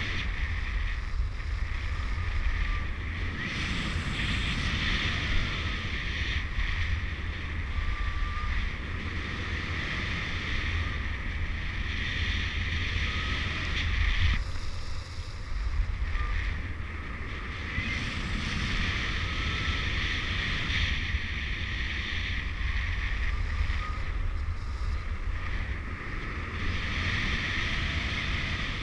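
Wind noise from the airflow over the microphone in paraglider flight: a steady low rumble with a hiss that swells and eases every few seconds.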